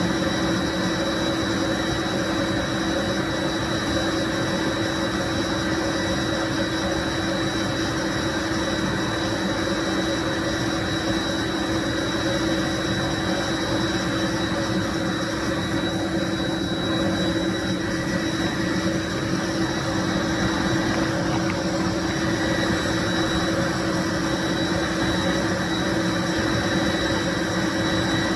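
1995 Bissell SC deep cleaning machine running steadily: an even rushing from its motor with a steady hum and a faint high whine.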